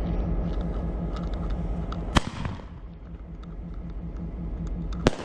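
Consumer firework hissing as it burns, then two sharp bangs about three seconds apart as its shells burst overhead, over a low steady rumble.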